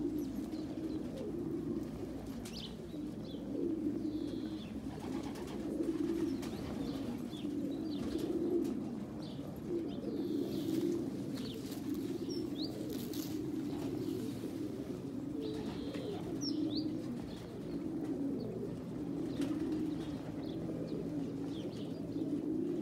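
Pigeons cooing continuously, with now and then a short high chirp.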